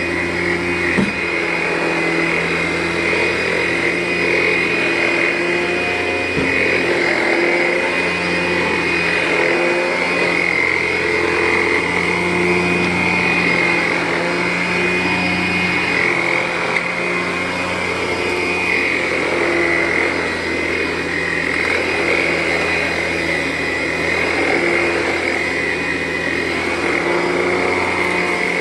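Vacuum cleaner motor running steadily with a high whine as it is pushed over carpet, its sound rising and falling slightly every couple of seconds with the strokes. A couple of light knocks, about a second in and again a few seconds later.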